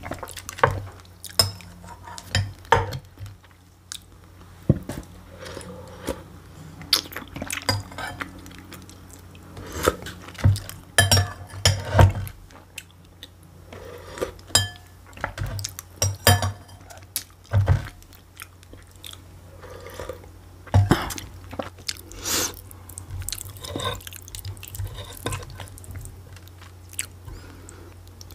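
Close-miked eating: spoonfuls of okroshka chewed and swallowed, with a metal spoon clicking against a glass bowl now and then. Sharp clicks and mouth sounds come scattered throughout, over a faint steady low hum.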